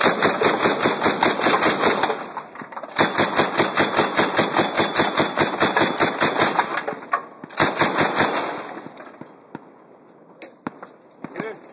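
Mk19 40 mm automatic grenade launcher firing in rapid bursts: one of about two seconds, a longer one of three to four seconds, and a short burst about seven and a half seconds in. A few scattered fainter bangs follow near the end.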